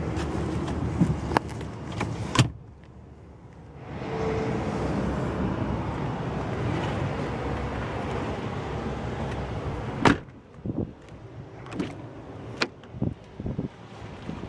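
Clicks and knocks of a pickup truck's cab fittings being handled, with a steady rushing noise between them and one sharp knock about ten seconds in.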